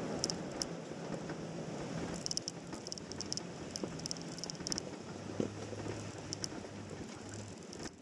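Off-road vehicle driving slowly over a loose gravel and rock trail: tyres crunching and crackling on the stones, with small clicks of gravel under a low, steady engine hum.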